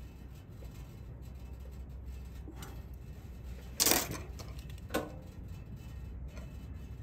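A metal Allen key clinks sharply as it is put down on the work bench about four seconds in, followed by a lighter click about a second later, over a low steady hum.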